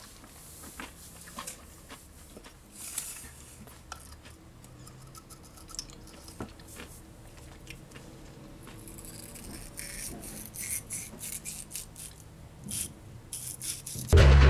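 Small spiral bristle brush scrubbing and scraping a wooden Magic Flight Launch Box vaporizer, with light clicks of its parts being handled; the strokes come thicker in the second half. Loud music cuts in just before the end.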